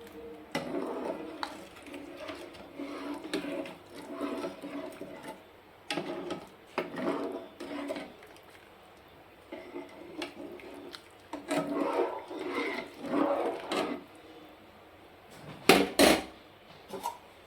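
Kitchen utensils scraping and clinking against a metal pot in irregular bursts, with two sharp clanks about three-quarters of the way through.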